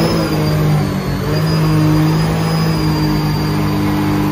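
Jet boat engine running at a steady speed while under way, a faint high whine above it.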